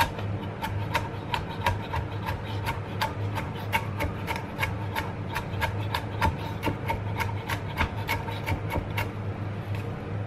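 Kitchen knife mincing an onion on a cutting board, quick even chops at about four a second; the chopping stops about nine seconds in.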